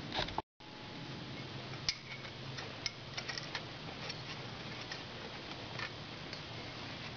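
Scattered light clicks and taps as the Sportster's finned cylinder barrel is worked down over the piston and onto the studs by hand, over a steady hiss. The sound cuts out completely for a moment about half a second in.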